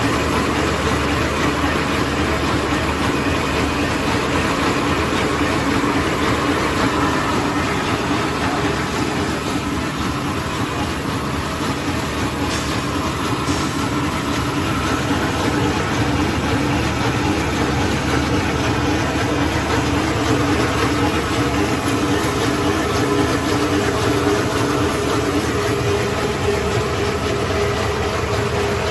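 Soontrue automatic facial tissue packing machine running in production: a steady, even mechanical noise over a constant low hum.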